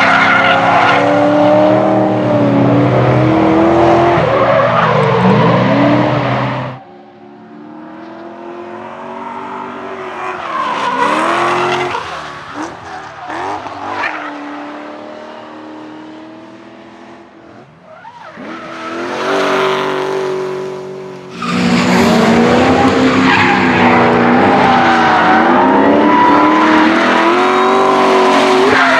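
Engine-swapped BMW E30 drift cars at full throttle, the engines revving up and down through long slides while the rear tyres skid and squeal. About seven seconds in the sound drops to a farther-off car, and the loud close-up engine and tyre noise returns about twenty-one seconds in.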